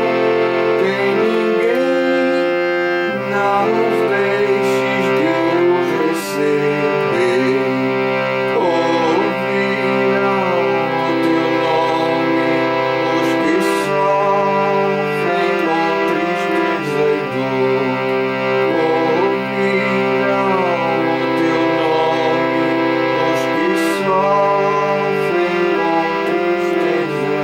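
Harmonium playing a slow melody over sustained reed chords, with a low bass note held under long stretches and dropping out now and then.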